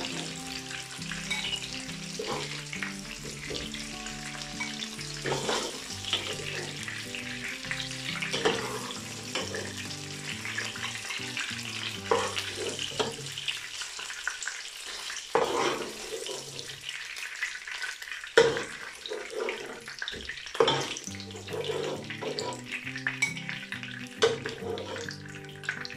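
Pork neck pieces sizzling in hot oil in a pot as they are lifted out, with repeated knocks and scrapes of a utensil against the pot. Background music plays underneath.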